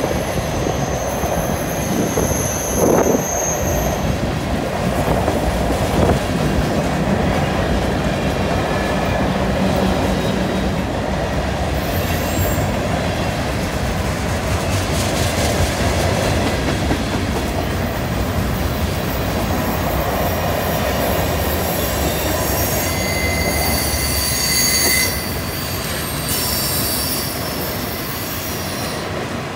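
Freight cars rolling past close by, steel wheels rumbling and clacking along the rail, with thin high wheel squeals coming and going as the train takes the curve.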